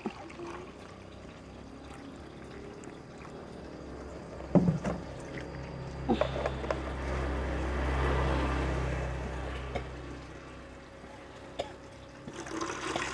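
Liquid poured from a plastic jerrycan into a plastic measuring jug, then a sharp knock about four and a half seconds in as a container is set down. A low rumble swells and fades midway, and near the end the liquid pours from the jug into a plastic bucket.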